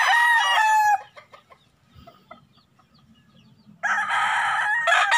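Gamefowl roosters crowing in their pens: one crow trails off and ends about a second in, and another loud crow starts near the end.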